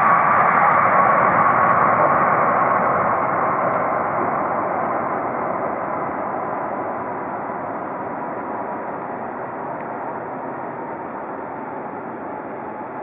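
Jet engines of a landing Boeing 777-300ER: a steady jet rush with a whine that slowly falls in pitch, fading gradually.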